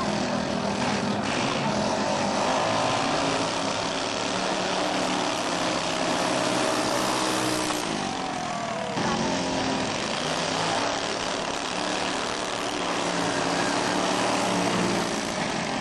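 Modified racing lawn mower engine running hard at high revs. Its pitch drops and then climbs again about eight seconds in.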